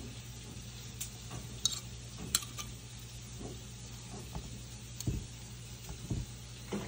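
Fork and knife clicking and scraping against a tray as cooked chicken is cut and pulled apart, with a few soft thuds. A steady low hum lies under it.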